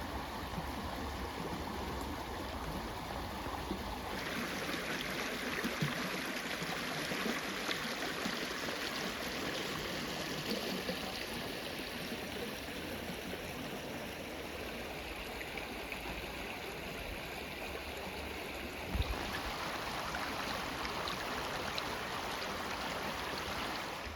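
Creek water flowing steadily, an even rushing and trickling that shifts in tone about four seconds in and again near the end.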